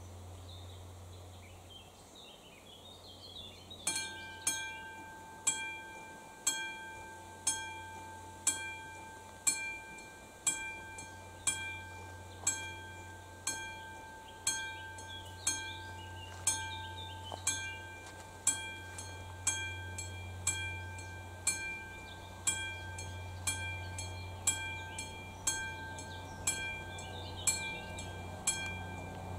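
Classic mechanical bell of a level-crossing warning signal starts ringing about four seconds in, struck about once a second with each strike ringing on: the crossing warning that a train is approaching.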